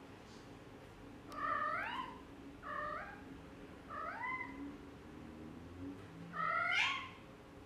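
Exotic shorthair mother cat meowing four times, each call rising in pitch, the last the loudest: anxious calls over her kittens having left the nest.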